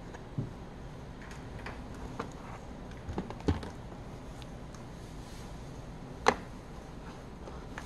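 Handling noise of gear being packed into a foam-lined 3D-printed plastic case: scattered light clicks and soft knocks as parts and cables are set in place, with one sharp click about six seconds in.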